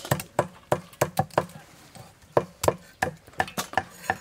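Two cleavers chopping prawns on a thick wooden chopping block: a quick, irregular run of sharp chops, with a short pause about a second and a half in.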